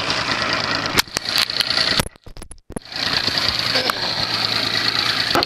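Mercury outboard motor running at idle under a steady rush of water and wind noise, with a few sharp knocks. The sound drops out briefly about two seconds in.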